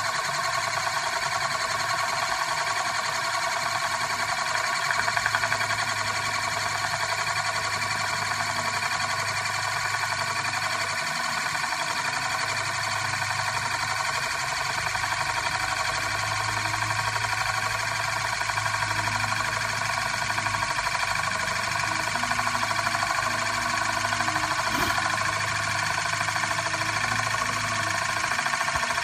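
Euler's disk, a metal disk spinning down on its edge on a mirror base, giving a steady whirring ring made of many bright tones at once, with a low hum underneath that comes and goes.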